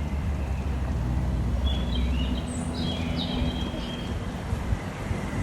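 A few quick bird chirps about halfway through, over a steady low rumble.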